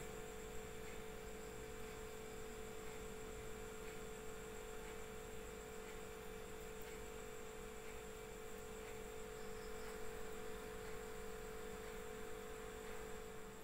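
Faint steady electrical hum: a constant mid-pitched tone with fainter higher tones over low hiss, the recording's background noise with no other activity.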